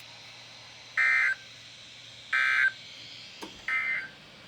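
Three short bursts of EAS/SAME digital data tones, the End of Message code that closes an emergency alert, each about a third of a second long and a little over a second apart.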